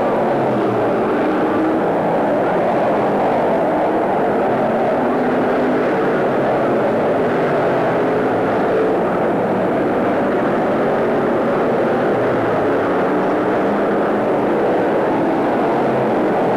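Stock cars racing around a short oval, their engines running together in a loud, steady drone whose pitches waver up and down as the cars go round.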